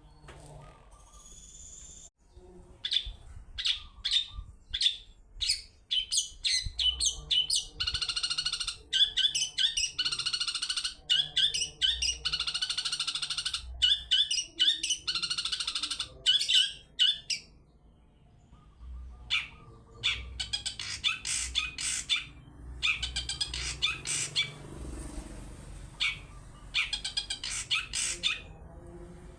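Long-tailed shrike (cendet) singing its 'toet toet' song: sharp, high notes repeated in quick series, with a long harsh, buzzy stretch in the middle, a short lull, then more rapid notes.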